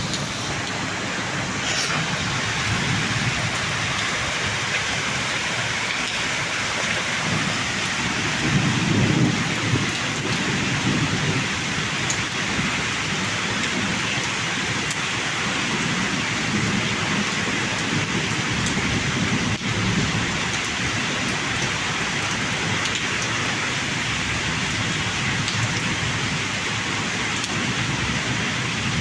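Heavy rain falling steadily, with low rolling rumbles of thunder swelling now and then, the strongest about a third of the way in.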